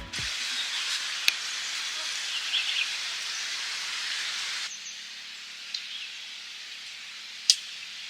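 Outdoor countryside ambience: an even, high hiss with a brief bird-like chirp and a couple of sharp clicks; the hiss drops in level abruptly about halfway through.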